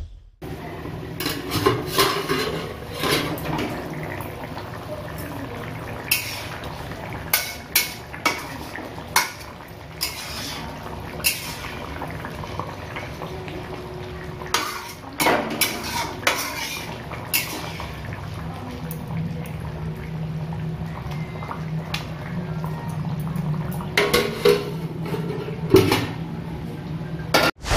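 Metal spatula and aluminium lid clanking and scraping against an aluminium kadai of simmering fish curry: a string of sharp, irregular clanks over a steady low hum.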